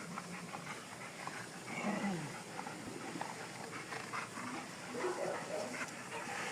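Dogs whining and yipping in short calls. One louder whine falls in pitch about two seconds in, and there is another cluster around five seconds in.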